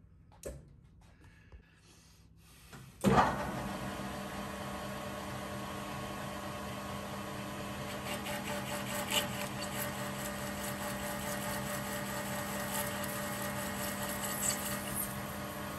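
Metal lathe starting up about three seconds in with a sharp jolt, then running steadily with a hum of several fixed tones as it turns a plate in a four-jaw chuck for a facing cut, with a few light ticks.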